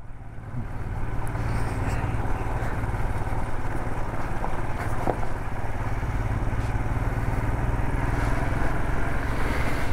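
Motorcycle engine running at a steady pace, with a continuous low drone under road and riding noise as the bike crosses a rough unpaved patch; a couple of faint knocks, about half a second in and about five seconds in.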